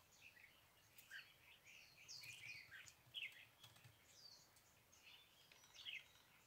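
Faint chirping and calling of several small birds: many short, quick notes that sweep downward, a few every second.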